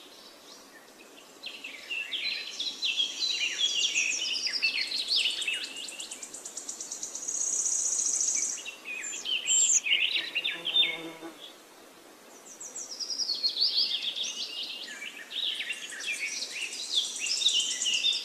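Songbirds singing: phrases of fast, high chirping notes, alternating with a high buzzy trill, with short lulls between phrases.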